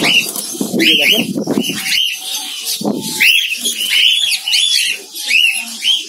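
A colony of cockatiels calling repeatedly: many short, arched chirps that overlap one another.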